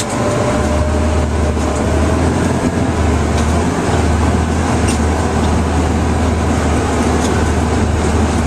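Fire engine's diesel engine and road noise heard from inside the cab while driving, with a deep steady rumble that comes in about half a second in.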